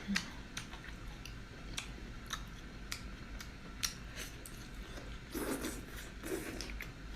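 A person chewing food close to the microphone: irregular wet mouth clicks and smacks, with two longer, louder chewing sounds about five and a half and six and a half seconds in.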